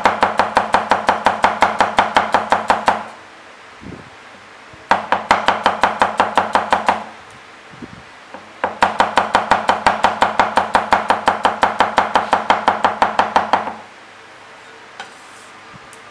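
Chinese chef's knife slicing garlic cloves thin on a wooden chopping block: quick, even taps of the blade against the board, several a second. They come in three runs, the last and longest ending about two seconds before the end.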